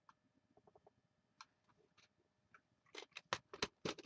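Clips being fitted onto a stack of paper pages: a few faint clicks, then about three seconds in a quick run of louder clicking and paper rustling.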